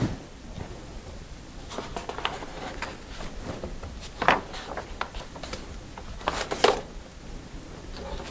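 Pages of a large old 1930s magazine rustling and swishing as they are turned by hand. The louder page-turns come about four seconds in and again a little after six seconds.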